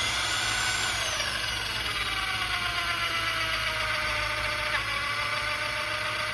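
Electric hand drill running steadily under load, its bit boring into a bolt snapped off in a BMW X5 30d's cam carrier to drill the bolt out. The motor's whine sags slowly in pitch as it works.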